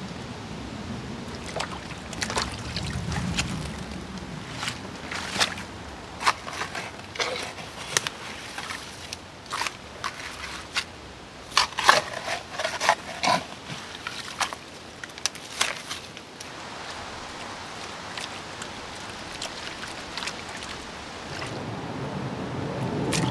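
Creek gravel being scraped out of the bank and dropped into a plastic gold pan: a run of short, sharp scrapes and clinks of stones, busiest and loudest about halfway through, then a steadier hiss for the last several seconds.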